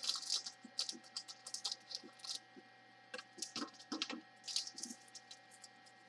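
Small plastic bags of diamond-painting drills crinkling and being snipped open with scissors: a scatter of light crackles and clicks, thickest in the first half-second.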